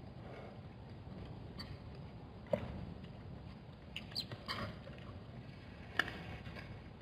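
Zebra hooves clicking and tapping on hard, dry ground as the herd moves around the waterhole, with two sharper clicks about two and a half and six seconds in and a short run of taps in between, over a steady low rumble.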